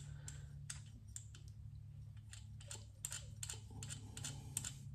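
Faint, irregular light clicks, a few a second, as gloved fingers turn and spin out an adjustable pushrod in a Harley-Davidson Milwaukee-Eight 114 engine, with a steady low hum underneath.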